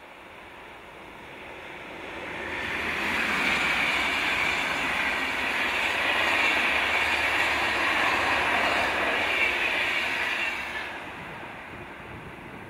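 VR InterCity train of red-and-white double-deck passenger coaches, hauled by a locomotive, passing at speed: the rush of wheels on rail builds over a few seconds, holds steady as the coaches go by, then fades near the end.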